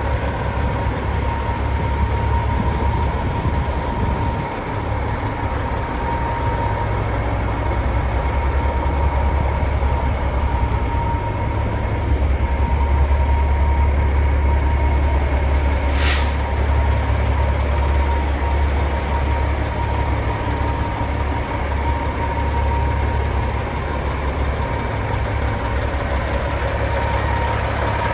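CAT 3406E inline-six diesel in a 1997 Peterbilt 379EXHD idling steadily. About sixteen seconds in there is a short, sharp hiss of air.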